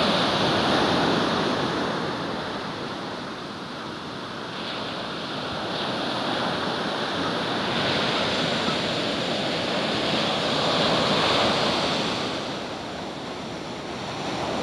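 Ocean surf with small, thigh-to-waist-high waves breaking and washing up the beach, the sound swelling and easing over several seconds.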